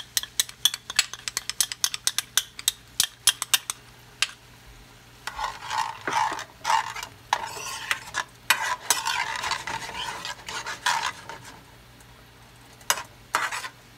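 A spoon stirring diced mango, mint and honey in a hot frying pan, with quick clicks and scrapes against the pan and a light sizzle. A rapid run of clicks comes first, then a denser stretch of scraping in the middle, a short lull, and a few more clicks near the end.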